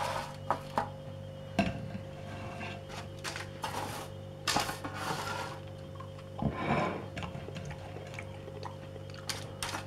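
Baked cookies being handled on a parchment-lined metal baking tray: a few light knocks and several brief papery rustles, over a steady low hum.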